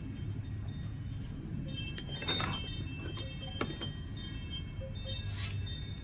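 Wind chimes ringing with scattered short notes at many pitches, over a low steady rumble. A few short scrapes and a sharp click come about two and a half and three and a half seconds in, as a small knife cuts at the husk and shoots of a coconut bonsai.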